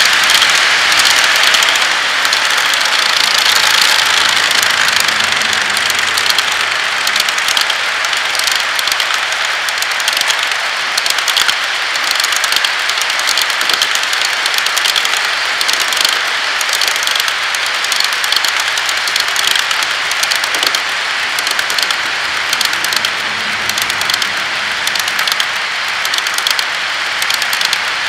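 HO scale model boxcars rolling past on the track: a steady rolling whir of wheels on rail, sprinkled with many fast, irregular clicks.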